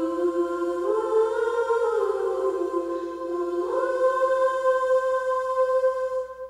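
Slow background music of long held chords, with notes sliding up about a second in and again near four seconds.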